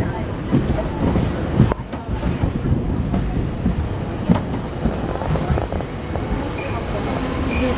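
Train running with its wheels squealing against the rails: high, steady squeals that come and go over a heavy rumble, with occasional sharp knocks.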